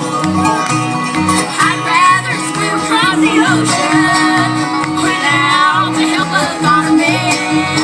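Live bluegrass band playing an instrumental passage between vocal lines: a sliding fiddle melody over banjo and guitar, with a steady bass beat underneath.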